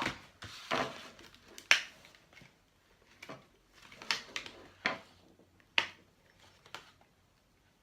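Toy packaging being handled: a series of sharp, irregular plastic clicks and snaps, about seven over several seconds, as the doll is worked free of its box fastenings.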